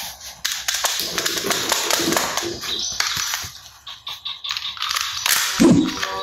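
Toy gun clicking rapidly, a dense run of sharp clicks and knocks, with a short pitched tone near the end.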